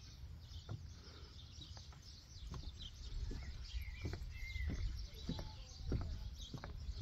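Small birds chirping now and then, with irregular footsteps knocking on wooden decking over a low rumble.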